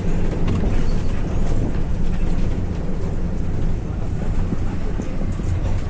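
PO Mulyo bus under way, heard from on board: a steady low rumble of the diesel engine, exhaust and road noise, with faint rattles over it.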